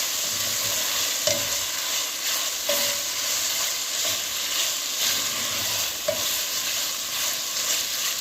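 Beef strips sizzling as they fry in soy and oyster sauce in a pot, with a steady hiss and now and then a short scrape or clink of a utensil stirring them.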